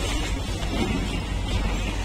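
RO-RO freight train, flat wagons loaded with lorries, rolling slowly past on the next track with a steady low rumble.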